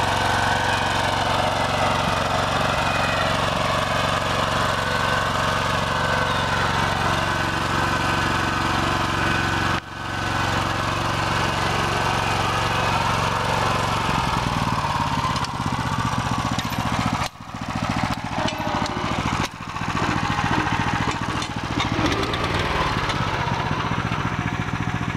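The engine of a BCS 853 walk-behind tractor running steadily as the tractor pulls a disk-hiller bedshaper through tilled soil. The engine's note changes about halfway through, and the sound drops out briefly a few times in the second half.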